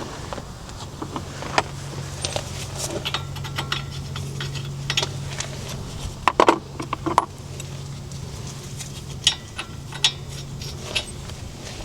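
Metal hand tools and parts clinking and scraping in scattered light knocks, a few louder ones about six to seven seconds in, over a steady low hum.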